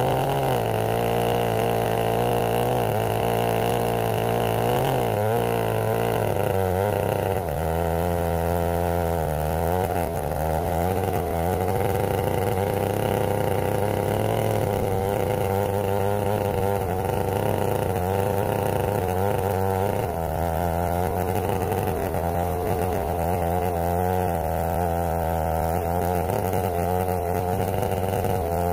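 Stihl 070 two-stroke chainsaw running steadily under load while ripping a black walnut log in a Granberg Alaskan chainsaw mill, its pitch wobbling a little as the cut goes on.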